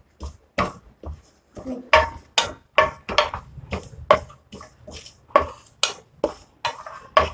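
A wooden spatula scrapes and stirs across a dry frying pan, about two strokes a second, pushing dry-roasting sesame and poppy seeds around the pan.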